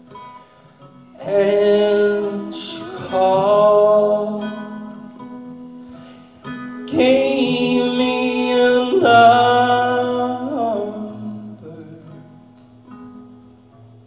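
Acoustic guitar song: a voice sings two long phrases, starting about a second in and again after about six seconds. The guitar's ringing notes carry on under and between them.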